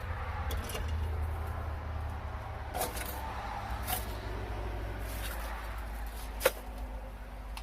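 A few sharp clicks and taps from handling the light fixture's metal hardware and wiring, the loudest near the end, over a steady low rumble.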